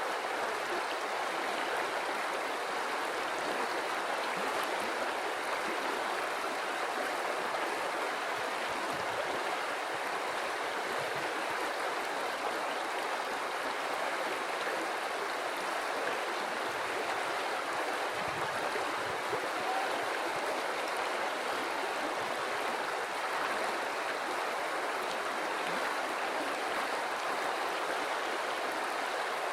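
River water flowing steadily over rocks, an even rushing and babbling with no breaks.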